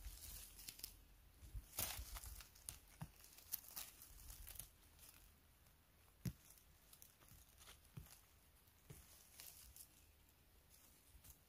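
Faint rustling and crackling of forest-floor undergrowth being disturbed while mushrooms are picked, with scattered sharper snaps, the loudest about two seconds in.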